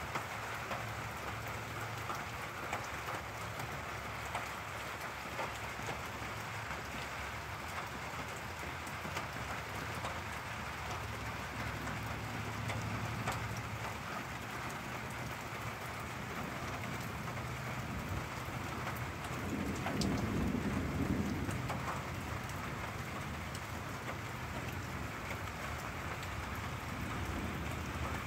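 Steady rain falling during a thunderstorm, with a low rumble of thunder swelling up about two-thirds of the way through.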